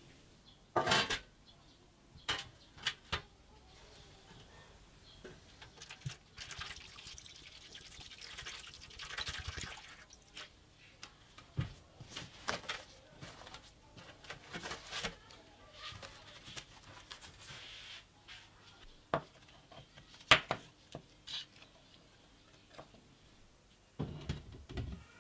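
Workbench handling sounds as the pieces of an old wooden knife handle are worked and set down: scattered knocks and clicks, one sharp knock the loudest, with a few seconds of scraping or rubbing about six to ten seconds in.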